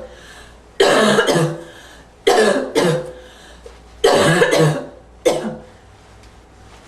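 A person's slight, wheezy, barking cough, in four short bouts about a second and a half apart, most of them two coughs each.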